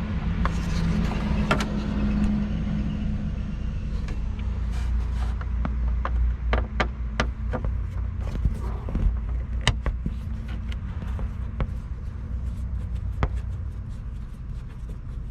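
Light clicks and ticks of a screwdriver working the screws and plastic dash trim, scattered and irregular through the middle of the stretch, over a steady low rumble.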